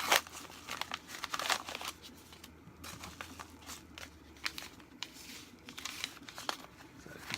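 A small envelope being torn open and its paper packaging crinkled by hand: irregular rustling and crackling with sharp tearing noises.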